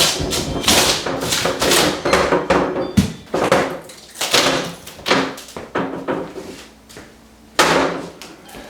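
Kitchen cabinet demolition: a run of knocks, scrapes and cracks of wooden cabinet parts being pried and broken out, with one sharp bang about three seconds in.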